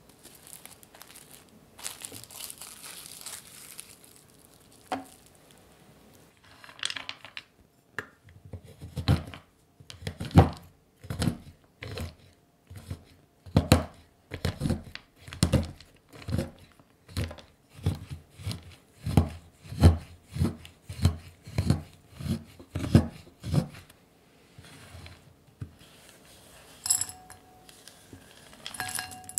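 Knife chopping couverture dark chocolate on a wooden cutting board: a steady run of chops, about one and a half a second, each a sharp cut with a thump on the board. A soft rustle comes before the chopping begins. Near the end, chopped chocolate slides off the board into a glass bowl with a few light clinks.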